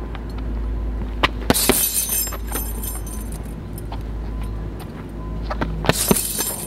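Gloved punches landing on a hanging heavy punch bag in two short flurries, a little over a second in and near the end, each set off by the bag's metal hanging chains jangling and rattling.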